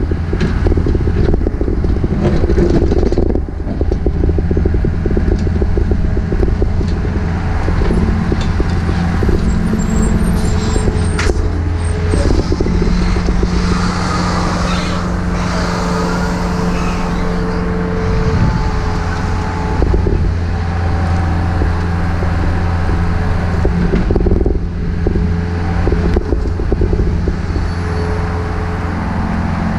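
Takeuchi TB153FR compact excavator's diesel engine running steadily under load, its tone shifting a few times as the hydraulics work, with occasional knocks.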